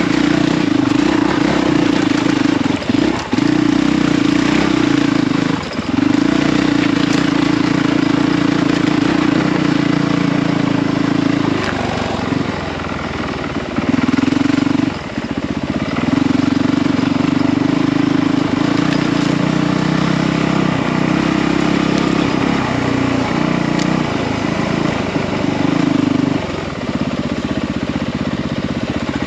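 Honda CRF450RL's single-cylinder four-stroke engine running steadily on a trail ride. Its note drops out briefly a few times, the longest about twelve to fifteen seconds in.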